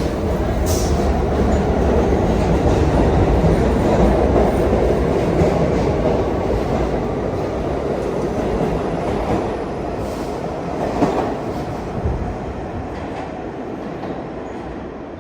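New York City subway train rumbling along the track, with wheel clicks. It gradually fades toward the end as it moves off.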